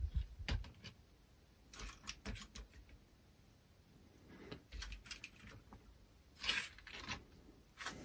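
Plastic Transformers action figures handled and set down on a tabletop: scattered light clicks and taps of hard plastic, with a louder, longer shuffle about six and a half seconds in.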